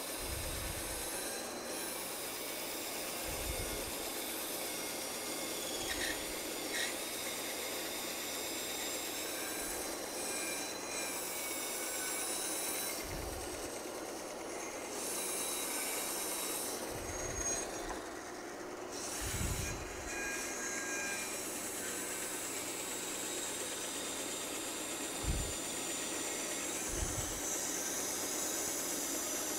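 Bandsaw running and cutting through a block of wood: a steady whirring hiss with a thin high whine. A few soft low thuds sound here and there.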